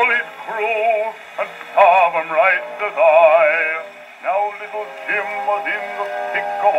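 A male bass singer singing with a strong vibrato, in phrases, played from an Edison Bell Velvet Face 78 rpm shellac record on a wind-up gramophone. The sound is thin and narrow, with no deep bass and little treble, as an old acoustic recording played through a gramophone soundbox.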